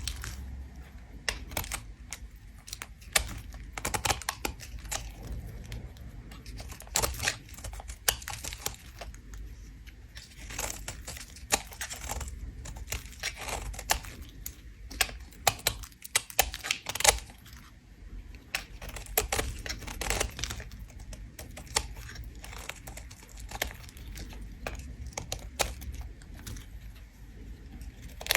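A bar of soap being scraped with a tool: dense, irregular crisp crackling and clicking as flakes are shaved off.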